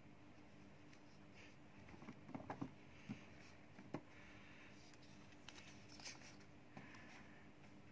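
Faint taps and rustles of a card being handled against a cardboard shoebox: a quick cluster of small clicks about two seconds in, single taps about three and four seconds in, and softer ones near six seconds, over a faint steady hum.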